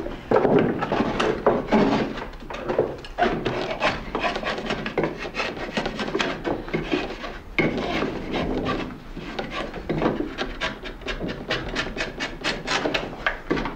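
A two-edged clog-maker's heel knife scraping and paring inside a poplar-wood clog in quick repeated strokes, shaving and smoothing the heel seat and side walls.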